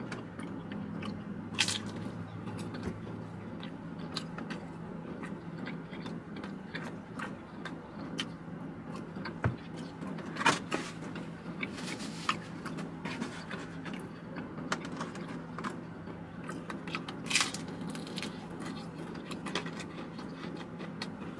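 Someone biting into and chewing crispy thin-crust pizza, with sharp crunches every few seconds. A steady low hum runs underneath.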